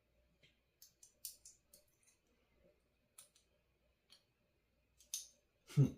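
Light, irregular clicks and ticks of small electronic components and hand tools being handled on a kit circuit board, with one louder knock near the end.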